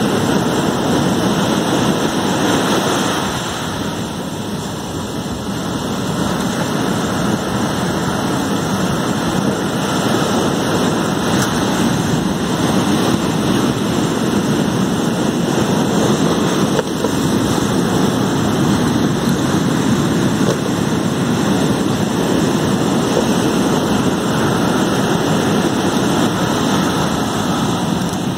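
Surf breaking on the shore close by: a loud, steady rushing noise of waves.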